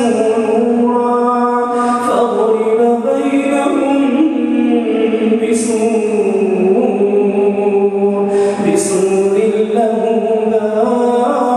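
A man's voice reciting the Quran in the melodic, drawn-out style of prayer recitation, holding long notes that slide slowly up and down, with a few sharp hissing consonants, amplified through a microphone.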